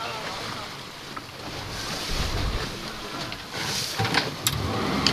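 Open-sea noise aboard a small fishing boat: water washing against the hull and wind buffeting the microphone, with a few sharp knocks about four seconds in.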